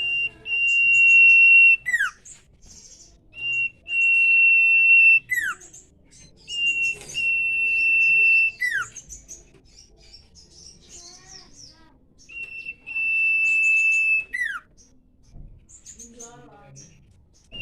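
Common iora giving its long 'nyiul' whistle four times, about every four seconds: a steady high note held about a second and a half that drops sharply at the end. Softer, quick high chirps come between the whistles.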